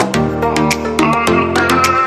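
Background music: an electronic instrumental track with steady pitched notes over a regular light beat.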